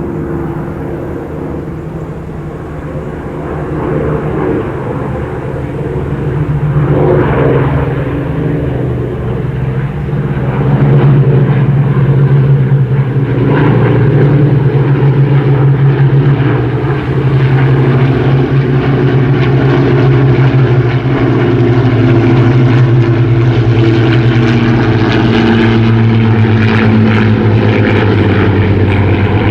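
Piston engines of a WWII British warbird, Rolls-Royce Merlin V12s, running with propellers turning. The sound grows louder over the first ten seconds or so, then stays loud and steady with a slight wavering in pitch.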